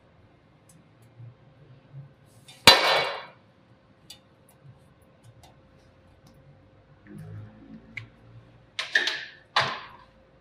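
Handling noises on a steel workbench: a sharp metallic clack about three seconds in, then light knocks and two short clatters near the end.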